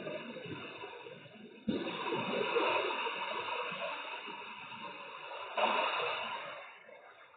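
Heavy rain hissing through a CCTV camera's microphone, jumping suddenly louder twice, about two seconds in and again near six seconds, each time fading slowly, and dying away near the end.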